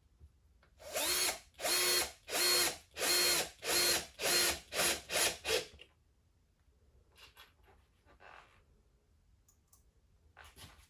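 Power drill driving screws into a wooden table top in a quick run of short trigger bursts, its motor spinning up to a steady pitch each time, then stopping. After a pause, one more short burst comes near the end.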